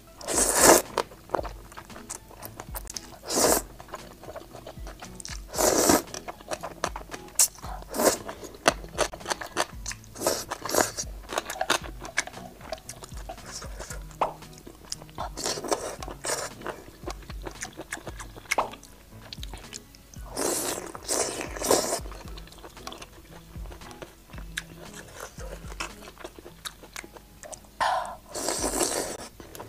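Close-miked eating of spicy braised noodles and toppings: a few loud noodle slurps among steady crunching, biting and chewing, with music playing quietly underneath.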